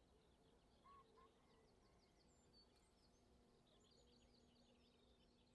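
Very faint outdoor ambience of several small birds singing and chirping, with two short, slightly louder calls about a second in.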